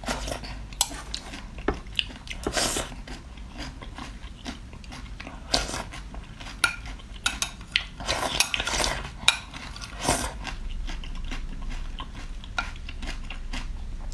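Close-up eating sounds: biting and chewing seafood, with irregular sharp clicks and clinks of utensils against dishes.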